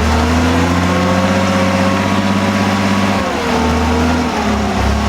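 Lifted Jeep's engine revving under load while rock crawling, its pitch climbing slightly and holding, then dropping about three seconds in before picking up again near the end.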